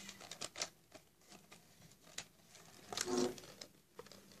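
Scattered soft clicks and rustling of things being handled close to the microphone, with a brief murmur of a voice about three seconds in.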